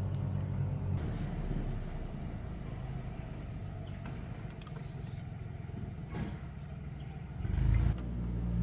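A low electrical hum with evenly spaced low tones that weakens after about a second, then a short louder rumble near the end before the hum comes back.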